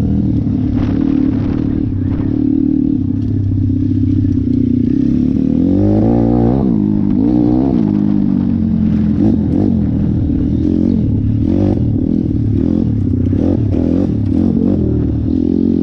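YX 150 pit bike's single-cylinder four-stroke engine running under way, its pitch rising and falling with the throttle and climbing in a rev about six seconds in.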